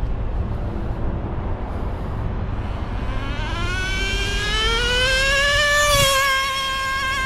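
Traxxas Nitro Rustler's TRX 2.5 two-stroke nitro engine, tuned a little rich during break-in. A low rumble at first, then about three seconds in its high-pitched note climbs steadily and holds high near the end.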